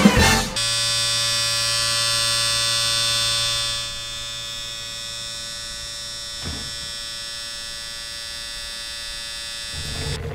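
Electric hair clippers buzzing steadily, starting about half a second in and dropping in level about four seconds in. There is a brief faint click about six and a half seconds in.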